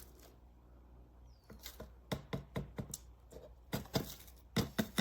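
An irregular run of sharp clicks and knocks from the electric grinder's removable stainless steel bowl and blade parts being handled. It begins about a second and a half in and grows louder near the end.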